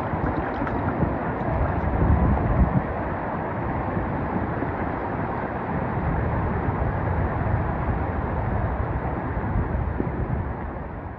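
Steady rushing water of the Kozjak waterfall and its stream: a dense, even noise, strongest in the low end, easing off a little near the end.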